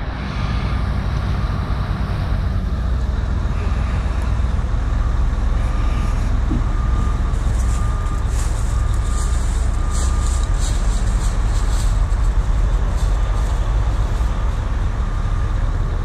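Heavy truck engine running steadily, with a faint beeping alarm repeating about once a second from about three seconds in.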